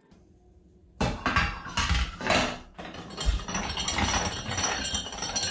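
Metal clinking and scraping as the stainless steel cylinder of a LEM 5 lb vertical sausage stuffer is handled and seated in the stuffer's frame. It starts suddenly about a second in and goes on in a run of knocks and rattles.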